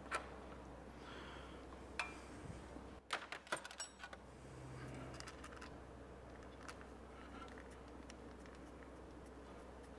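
Small metal parts and tools clinking as a cam chain tensioner is fitted to an engine by hand. There is a single click at the start, another about two seconds in, and a quick cluster of clinks around three to four seconds in. A steady low hum runs underneath.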